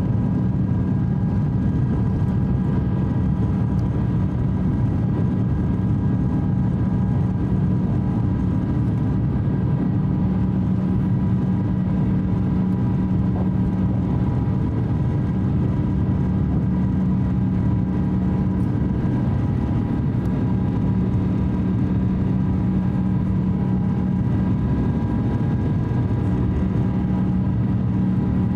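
Cabin noise of an Airbus A350-900 climbing out after takeoff: its Rolls-Royce Trent XWB engines at climb thrust give a steady rushing drone with a low hum and a few faint steady tones.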